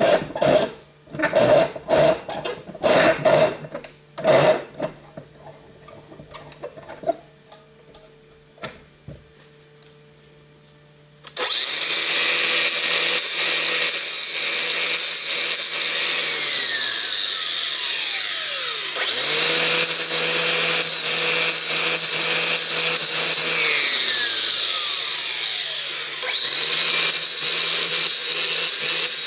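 Angle grinder with a flap disc, grinding the edges of steel auger bits. A few seconds of choppy grinding bursts give way to a quieter hum; about eleven seconds in, the grinder starts up and runs loud and steady. Twice its pitch falls as it slows, then it picks back up.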